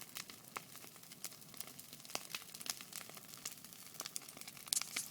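Bonfire burning with irregular crackles and pops over a faint hiss, a brighter cluster of pops near the end.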